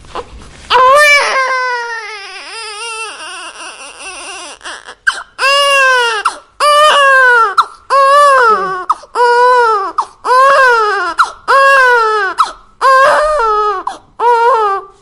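Newborn baby crying: a long, wavering wail about a second in that trails off, then a rhythmic run of loud cries about one a second, each rising and falling in pitch.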